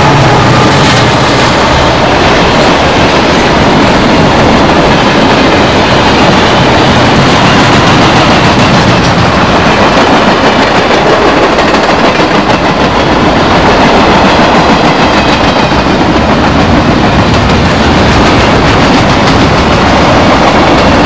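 A train going by close up: the loud, steady noise of its cars rolling on the rails.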